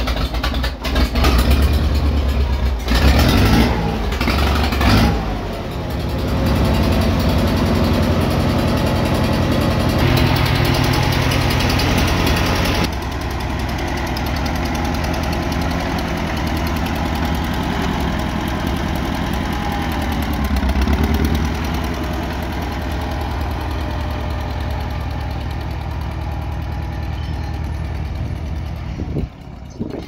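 1957 Case 300 tractor engine just after catching, revved up and down a few times in the first seconds, then running steadily under way. It runs smoothly.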